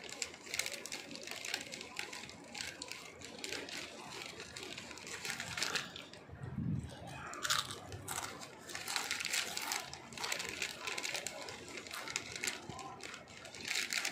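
Potato chips being bitten and chewed close to the microphone: a continuous run of crisp crunches, with a few louder crunches, one about seven and a half seconds in and another near the end.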